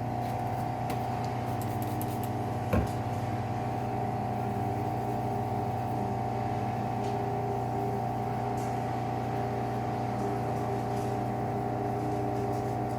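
Bench grinder fitted with a Scotch-Brite wheel running at a steady hum while rust is buffed off a knife blade, with a single short knock about three seconds in.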